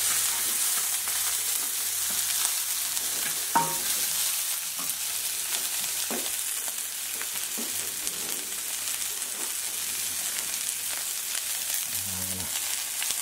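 Chopped hogweed stems, lettuce and spring onion sizzling in hot oil in a frying pan, a steady high hiss. A few knocks and scrapes come through as a wooden spatula stirs them, the sharpest about three and a half seconds in.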